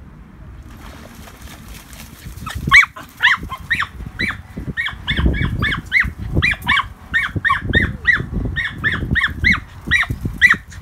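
Border Terriers barking in rapid high yaps, about three a second, starting a couple of seconds in, with low growling between the yaps: dogs at rough play.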